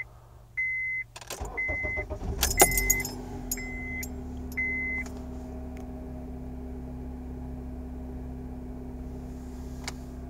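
Keys jangle and a car's warning chime beeps about once a second as a 2005 Honda Accord's four-cylinder engine is cranked and catches, about two seconds in. It then idles steadily with a constant note like a whistle or hum from the intake manifold and throttle body area, which persists despite a new idle air control valve, a new PCV valve and a cleaned throttle body.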